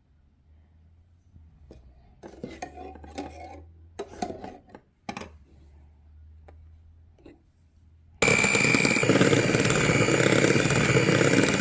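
A spoon clinking and knocking against a bowl. About eight seconds in, an electric hand mixer switches on abruptly and runs steadily at speed with a high whine, beating thick cream.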